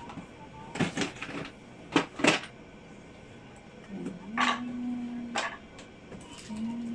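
Handling knocks and clicks on the TV's plastic casing, a few sharp ones in the first couple of seconds, followed by a low steady hum-like tone that sounds twice, each time for about a second or more.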